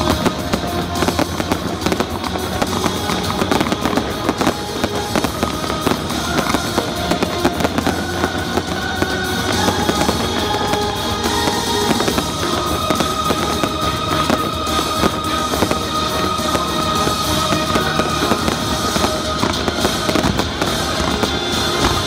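Aerial fireworks going off in quick succession, many pops, bangs and crackles, over a music soundtrack.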